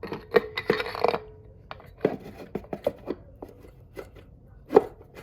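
Irregular clicks and light knocks of 4L60E transmission parts being handled as the pump and stator are test-fitted into the case, with the loudest knock near the end.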